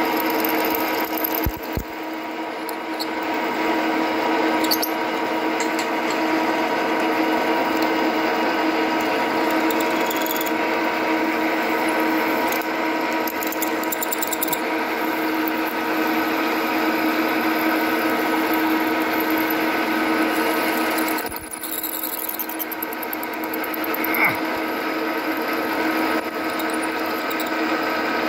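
Milling machine spindle running steadily with a 6 mm drill bit cutting into a round axle blank: a constant machine hum with a steady pitch that dips briefly about two-thirds of the way through.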